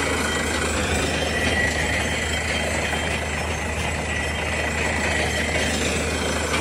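Truck-mounted borewell drilling rig running steadily while drilling, its engine and drive making a constant heavy drone with a steady high whine.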